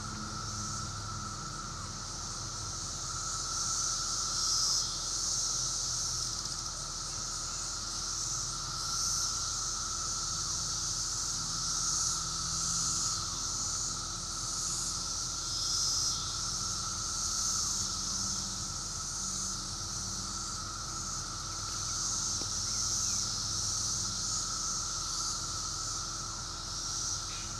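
A chorus of periodical cicadas: a steady, high drone that swells and fades in waves, over a lower steady whine.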